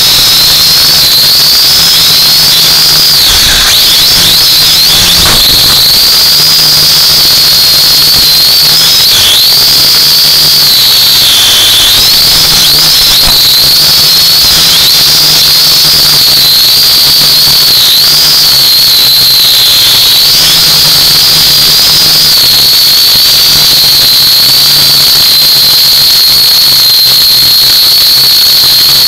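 U818A-1 quadcopter's electric motors and propellers whining as heard from its onboard camera, a loud high whine that wavers up and down in pitch with the throttle and dips a couple of times, over a steady hiss.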